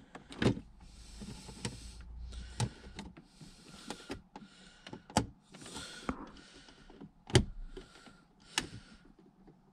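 Plastic center-console trim being pushed and worked into place: short scraping rubs of plastic on plastic alternate with about half a dozen sharp clicks, the loudest about seven and a half seconds in.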